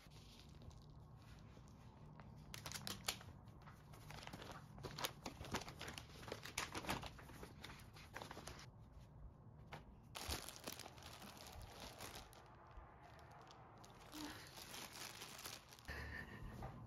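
Faint, irregular crinkling and rustling, with scattered small clicks, as of something being handled.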